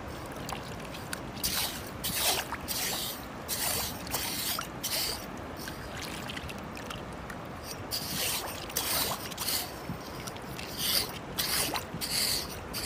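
Small hand claw rake scraping and splashing through wet sand in shallow seawater, digging for clams. It comes as a run of short, scratchy, splashing strokes, with a lull about halfway through.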